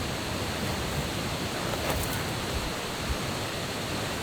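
Steady rushing of water in a gorge, an even noise without rhythm or pitch.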